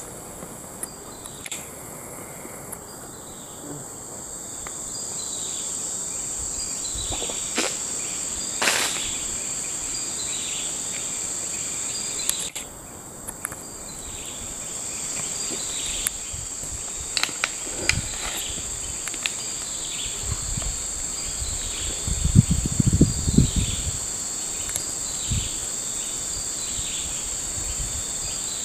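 Steady high-pitched drone of tropical forest insects, with a short falling call repeating about once a second through the second half. A few sharp knocks and a brief low rumble break in about two-thirds of the way through.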